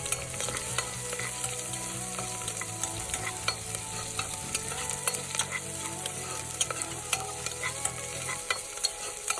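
Chopped onion and green chilli sizzling in hot coconut oil while a spatula stirs and scrapes the pan, giving a steady hiss with many small clicks. A low hum runs under it and stops about eight and a half seconds in.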